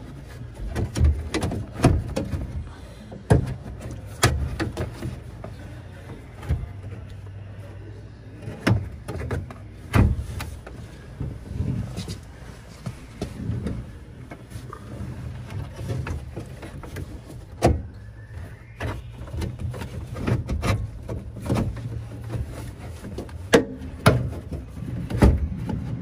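Irregular clicks, knocks and scrapes of plastic and metal as a Honda Odyssey sliding-door latch assembly and its plastic cover are worked by hand into the door cavity, over a steady low hum.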